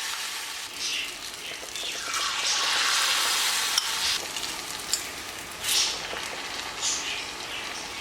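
Batter-coated date balls deep-frying in hot sunflower oil in a kadai: a steady sizzle with scattered crackles, swelling louder about two seconds in and easing off after the fourth second.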